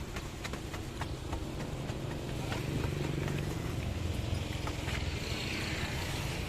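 A motor vehicle running and passing on the road, its rumble swelling about halfway through, with scattered light clicks and knocks.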